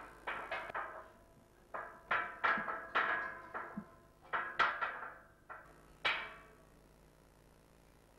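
Metal ladder clanking under climbing feet and hands: a dozen or so uneven knocks, each ringing briefly, stopping about six seconds in.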